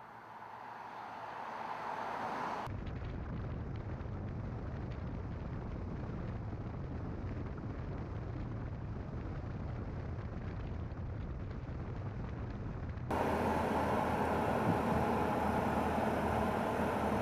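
Kia Sportage Eco-Hybrid diesel SUV on the move in three spliced shots. The sound swells over the first two seconds, then gives way abruptly to a steady low rumble. Near the end a sudden cut brings a louder, fuller road and engine noise.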